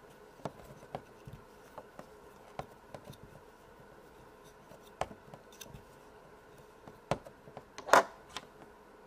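Light clicks, taps and scrapes of plastic Play-Doh tools and modelling dough being handled on a tabletop, with sharper knocks about five and seven seconds in and a short rustle near eight seconds.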